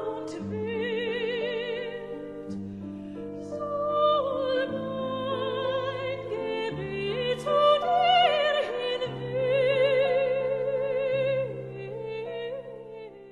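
Operatic singing with strong vibrato on long held notes over slow, sustained low chords, fading out near the end.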